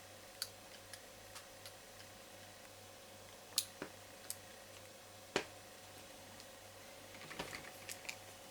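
Small sharp clicks and taps of a plastic electrical connector and a metal terminal pin being handled and pushed into its cavities, irregularly spaced, with two louder clicks around the middle and a quick cluster near the end. A faint steady hum runs underneath.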